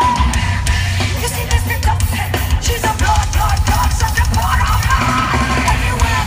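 A heavy metal band playing live in an arena: a woman singing long held notes over drums, cymbals and distorted guitars, with a heavy low end.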